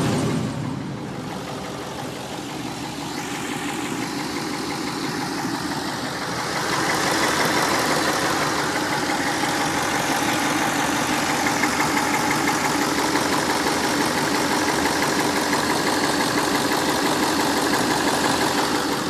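Built 5.1-litre stroker V8 of a Ford Mustang GT running at idle with a ticking/knock noise, which the owner suspects is a bad lifter. The sound gets louder and brighter about seven seconds in and then holds steady.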